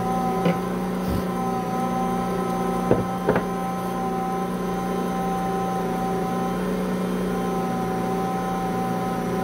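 An Ankarsrum stand mixer runs steadily, its motor humming as the bowl turns the bread dough. A few short knocks come about half a second, a second and three seconds in, the last two louder and close together.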